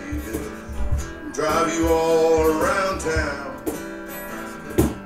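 Live band music led by guitar, with notes that bend and shift over a steady low beat and a sharp drum hit near the end.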